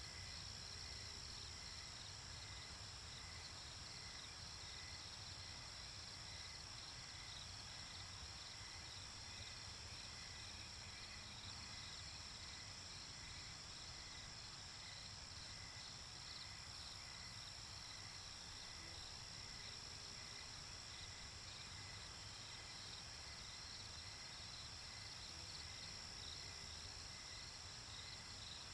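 Faint chorus of crickets chirping: a steady high trill with a second, pulsing chirp beneath it, over a low, even noise bed.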